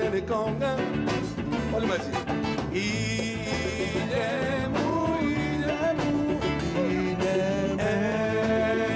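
A live band playing: acoustic guitar, electric bass and drums, with a man singing over them.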